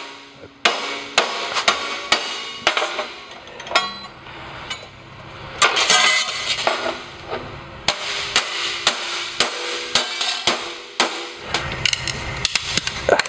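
Repeated hammer blows on a thin steel test coupon clamped in a bench vise, bending it over to bend-test a laser weld in carbon steel. The strikes are sharp and come at irregular intervals, several a second at times, with short pauses between runs.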